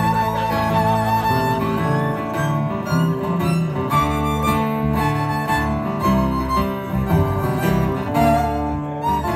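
Live acoustic string band playing an instrumental break between verses, fiddle and acoustic guitars over bass.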